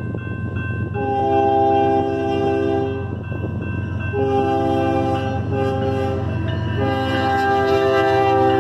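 Approaching diesel freight locomotive blowing its multi-chime air horn for the crossing: two long blasts, a short one and a final long blast that runs on past the end, the standard crossing signal. A crossing bell rings steadily underneath, over a low rumble of the oncoming train.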